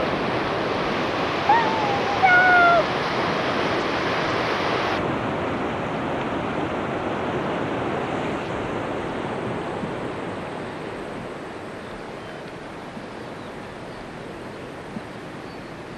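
Steady rush of ocean surf, with two short high gliding calls about two seconds in. The surf drops abruptly at about five seconds and grows fainter toward the end.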